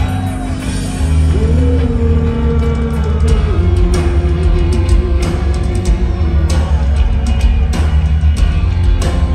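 A heavy rock band playing live through a large PA, with distorted electric guitars, bass and drums, heard from the crowd. A long held note rises over the band about a second and a half in, steps down and fades out about two-thirds of the way through.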